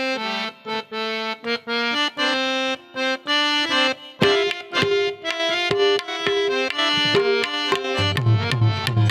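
Harmonium playing the introductory melody of a Gujarati folk lullaby, in separate sustained notes stepping up and down. A hand drum such as a tabla comes in near the end with low strokes.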